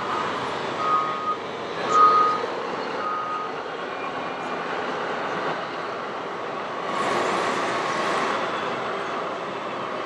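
Reversing alarm of an RC construction model's sound unit beeping about once a second, three beeps in the first few seconds, then stopping. Under it a steady mechanical rumble and hall noise that swells about seven seconds in.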